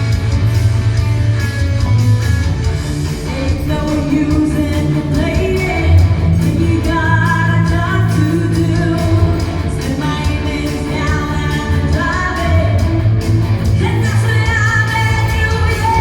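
A live band playing a song with a lead singer, over heavy bass and a steady drum beat: a sound check.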